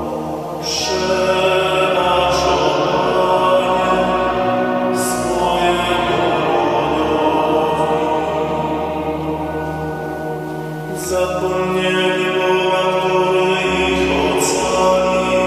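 A man singing a slow psalm melody in a chant-like style, holding long notes, with breaks between phrases about five and eleven seconds in.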